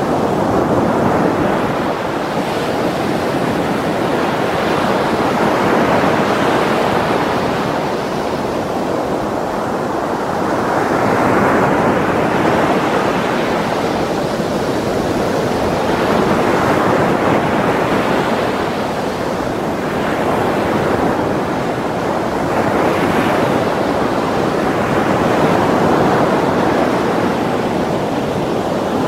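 Heavy surf breaking over black lava rocks in a strong swell: a loud, continuous wash of breaking water that swells and eases every few seconds as each wave comes in.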